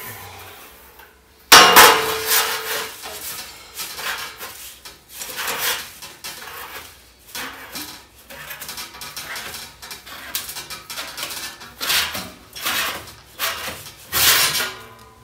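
Thin sheet-metal template being bent over a steel pipe by hand, clanking and rattling against the pipes in irregular bursts. There is a sharp clang about a second and a half in that rings briefly, and another loud clatter near the end.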